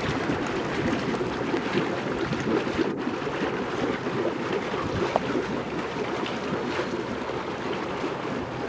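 Steady rushing wind noise from blowing snowstorm wind on the microphone.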